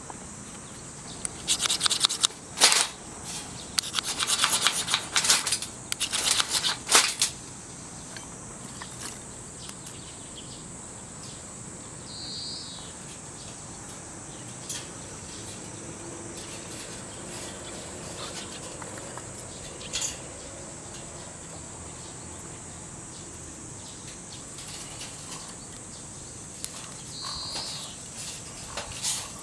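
Several seconds of rustling and scraping handling noise near the start, then quiet outdoor background with a steady high-pitched tone, a few light clicks and two short bird chirps.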